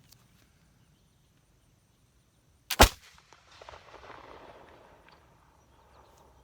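A stainless-steel reproduction 1733 Navy model flintlock pistol fires once, about three seconds in. A short snap of the lock and pan comes an instant before the loud main report. A fainter noisy tail follows and fades over the next couple of seconds.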